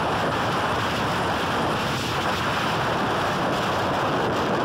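Steady roar of a KLM Airbus A330's jet engines at takeoff power behind the blast fence, with the jet blast buffeting the microphone as wind noise.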